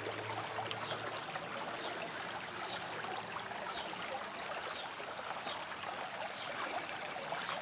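Trout stream water flowing with a steady trickle.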